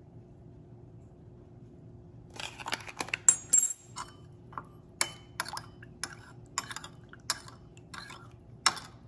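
A metal spoon clinking against a ceramic bowl as it stirs a thin sauce: a few clicks and one sharp ringing clink a couple of seconds in, then steady taps two or three a second as the stirring goes on.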